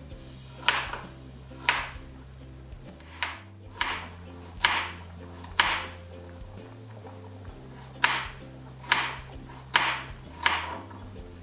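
Kitchen knife chopping a carrot into thick rounds on a plastic cutting board: about ten sharp chops at an uneven pace, with a pause of a couple of seconds in the middle, over soft background music.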